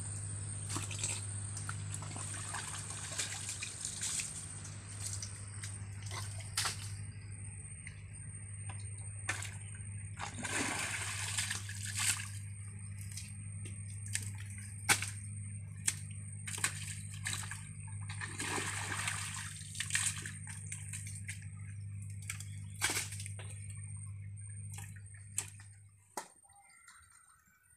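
Water running and splashing through a muddy drainage ditch, over a steady low hum that stops near the end, with scattered short knocks.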